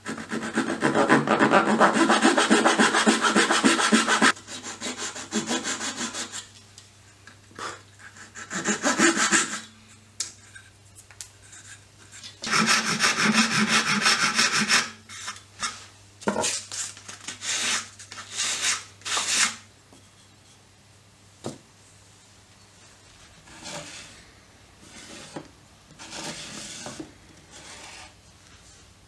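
Fine-toothed hand saw cutting through a small wooden block flush with a pine surface in rapid back-and-forth strokes, the longest run in the first four seconds, then shorter bursts. Around the middle a handheld abrading block rasps the sawn end smooth in quick strokes; the last several seconds hold only faint rubbing and handling.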